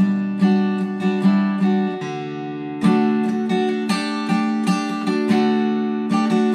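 Acoustic guitar played solo by hand: a steady run of single plucked notes, about two or three a second, over low strings left ringing.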